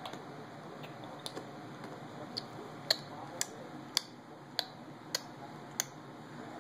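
A series of sharp, short clicks, about a dozen. They are scattered at first, then come in a fairly even run of about one every half second or so through the middle, with the loudest click about three seconds in.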